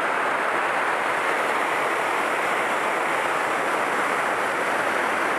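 Waterfall on a forest stream, water cascading down rock ledges in a steady, unbroken rush.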